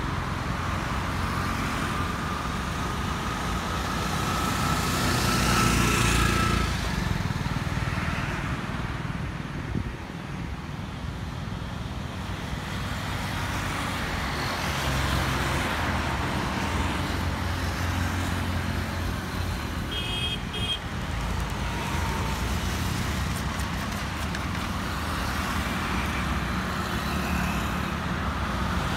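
Road traffic: a steady flow of cars and motorcycles passing on a multi-lane road, engines and tyres, with a louder pass about six seconds in. A brief high beeping comes about twenty seconds in.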